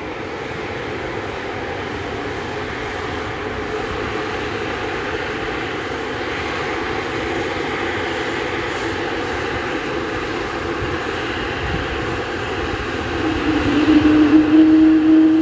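Jet airliner engines running, a steady rushing noise that slowly builds. About thirteen seconds in it grows louder and a steady hum joins it.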